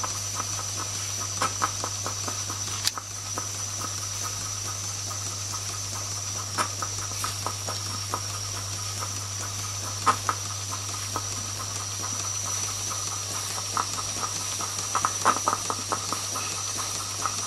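Jensen 20G toy steam engine ticking over slowly: a steady hiss of steam over a low hum, with light, irregular clicks and taps from the running engine.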